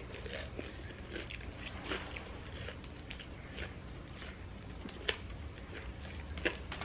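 People chewing and biting food, curly fries and a sandwich, with wet mouth sounds and small crunches close to the microphone. A couple of sharper crunches come about five and six and a half seconds in, over a low steady hum.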